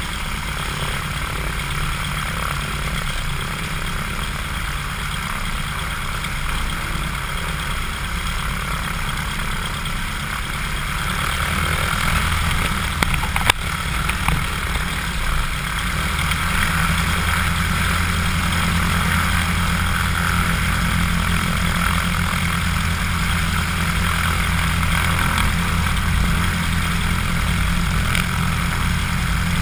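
Cessna 150's Continental O-200 four-cylinder engine and propeller running at low taxi power, heard from outside the cabin close to the propeller. The engine note rises about eleven seconds in and again a few seconds later as power is added, with a single sharp click in between.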